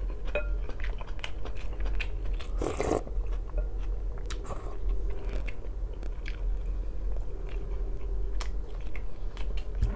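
Close-miked eating sounds: chewing and biting, with many small wet mouth clicks, and a brief slurp of borscht from a wooden spoon about three seconds in.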